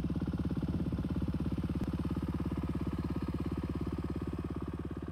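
Yamaha WR250R dirt bike's single-cylinder four-stroke engine running steadily at low revs, its firing pulses evenly spaced.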